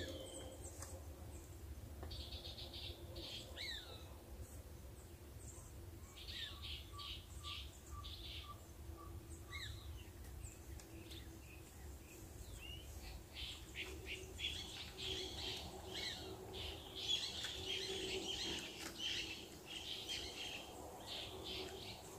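Several wild birds chirping and calling, with many short high chirps and trills that are busiest in the second half. Between about six and ten seconds in, a run of about nine evenly spaced lower whistled notes.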